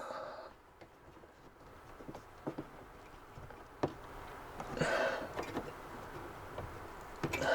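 Handling noises during work on an RV air conditioner's ceiling ducting: scattered light taps and clicks, one sharp click a little before four seconds in, and a brief scraping rustle about five seconds in.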